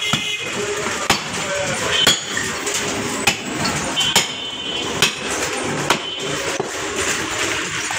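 Butcher's cleaver chopping beef on a wooden chopping block, sharp chops about once a second.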